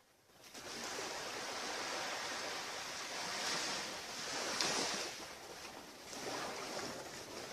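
Ocean waves washing onto a beach, a steady surf noise that swells and eases as the waves come in, loudest a little past halfway.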